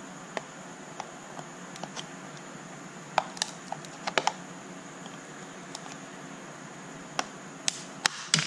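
Flathead screwdriver prying at the seam of a counterfeit MacBook MagSafe 2 power adapter's plastic case, giving scattered sharp clicks and small cracks of plastic. The clicks bunch around three to four seconds in and again near the end.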